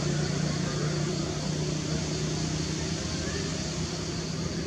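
An engine running steadily: a low, even hum over a hiss, slowly easing off, with a faint high chirp about three seconds in.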